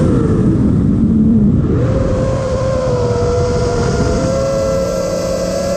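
FPV quadcopter's motors and propellers whining, with wind rushing over the onboard microphone. The pitch falls in the first second or so, rises again about two seconds in, then holds fairly steady with a slight waver.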